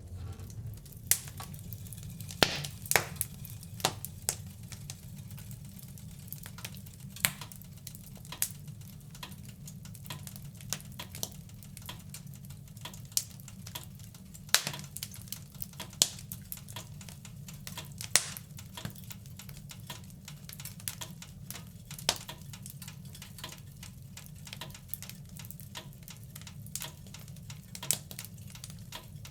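Wood fire crackling in a fireplace: irregular sharp pops and snaps, a few of them loud, over a steady low rumble of the flames.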